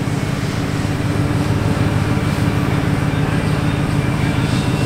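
Vehicle engine idling steadily with a low rumble.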